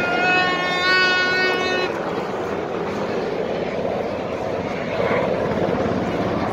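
A plastic fan horn blown in one long, steady note that stops about two seconds in, followed by the dull hubbub of a crowd outdoors.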